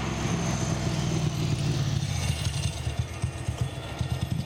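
Steady low rumble of vehicle noise with an uneven, fluttering texture.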